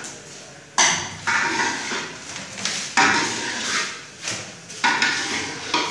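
Kitchen clatter: about five sharp metallic knocks, each with a short ringing fade, from large cooking pots and utensils being handled.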